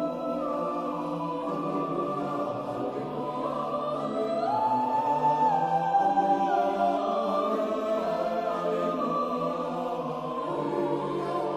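Choir singing sustained chords. About four seconds in, the upper voices step up to a held high note and the sound swells a little, then the line steps back down.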